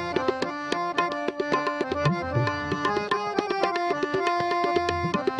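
Tabla and harmonium playing an instrumental passage of Gurbani kirtan between sung lines: quick, dense tabla strokes under a harmonium melody that moves from note to note.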